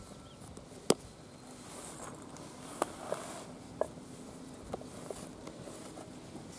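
About six sharp, light knocks and taps, the loudest about a second in, over faint background noise.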